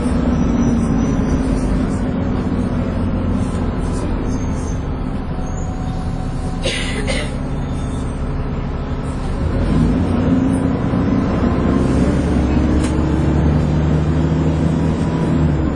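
Dennis Trident 2 double-decker bus engine running with its vacuum-cleaner-like 'hoover' whine. It eases off in the middle, with a short hiss about seven seconds in, then pulls away again with a rising pitch.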